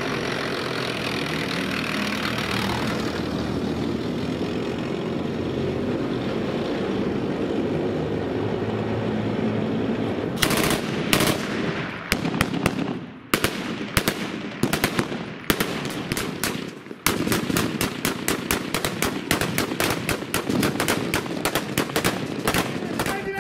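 A tracked armoured personnel carrier's engine and tracks run steadily for about the first ten seconds. Then rifle gunfire begins: single shots and short bursts, turning into sustained rapid automatic fire from several guns from about seventeen seconds on.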